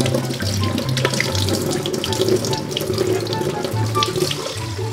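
Kitchen faucet running steadily onto hands that rub and rinse raw chicken feet, with splashing against the sink. Background music with a bass line plays underneath.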